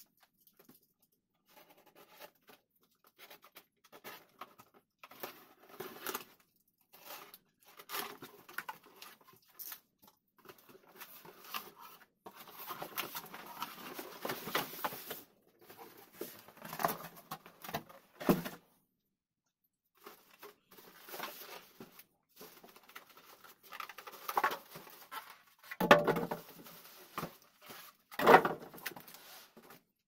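PC component boxes and packaging being handled and opened: irregular rustling, scraping and tapping of cardboard and plastic, with two louder knocks near the end.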